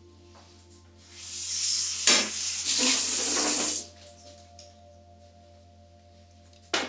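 Kitchen tap running for about three seconds, starting about a second in and shutting off sharply, with a knock partway through.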